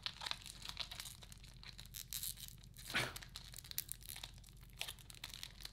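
Foil wrapper of a 1997 Bowman Chrome baseball card pack being torn and peeled open by hand: faint tearing and crinkling with many small crackles, and one louder sound about three seconds in that falls in pitch.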